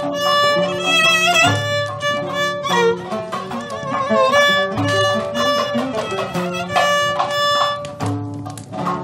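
Violin playing a melody with vibrato over plucked oud and cümbüş accompaniment, in an instrumental passage of Turkish fasıl music.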